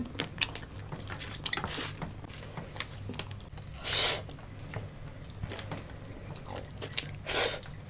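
Close-miked mukbang eating sounds: soft wet mouth clicks and chewing, with a louder sucking slurp about four seconds in as fingers are sucked clean, and another slurp near the end.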